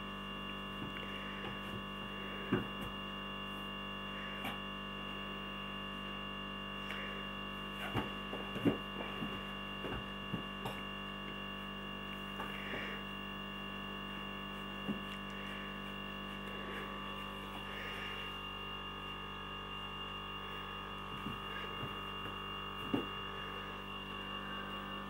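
Steady electrical hum made of several held tones, with a few soft thumps and scuffs scattered through it as two cats wrestle on a rug.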